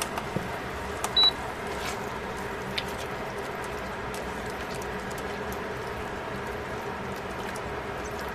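Thin-sliced pork and sauce sizzling steadily in a stainless steel frying pan, with a few light clicks. A short, high electronic beep sounds about a second in.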